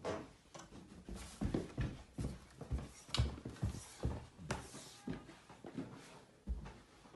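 Footsteps going down carpeted stairs and on across a carpeted floor, soft thuds about two to three a second.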